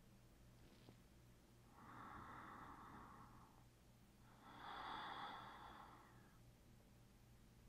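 Faint, slow breathing close to the microphone: two long breaths, about two seconds in and about four and a half seconds in, the second louder, over a faint low hum.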